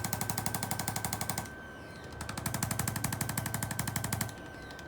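Rapid, machine-gun-like tapping from a handheld electric percussive chiropractic adjusting instrument, in two bursts. The first stops about a second and a half in; the second starts just after two seconds and stops a little after four.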